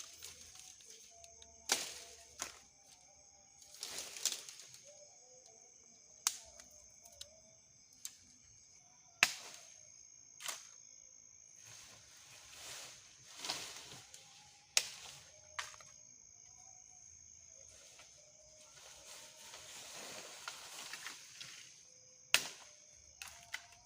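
Dry sticks cracking and snapping by hand, about a dozen sharp snaps at irregular intervals with brief rustling between them, over a steady high-pitched tone in the background.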